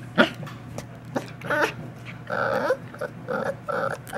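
Pembroke Welsh Corgi puppy growling in several short growls while tugging on a rope toy.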